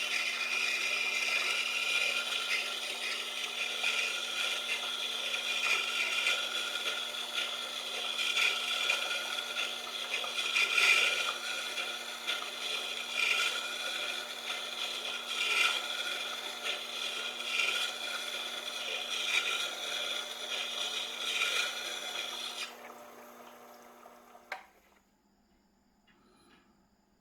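A steel drill bit being ground against the turning stone of a Tormek T-8 wet grinder, a steady rasping scrape that swells and eases unevenly, with the grinder's motor humming underneath. The scraping stops a little before the end, and the motor hum cuts off shortly after.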